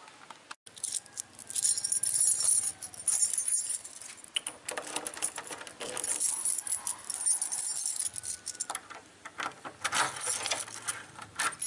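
A bunch of keys jangling and clicking against a steel doorknob as a key is worked in its lock, in irregular bursts.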